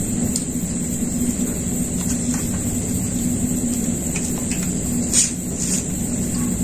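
A steady background hum with a constant high-pitched hiss, with faint clinks of people eating by hand from steel plates and one louder short knock about five seconds in.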